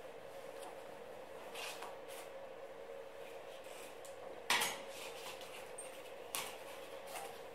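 Large scissors snipping into a fabric back brace, a few short sharp clicks, with one louder clatter about halfway through as a stay strip taken from the brace drops onto the table.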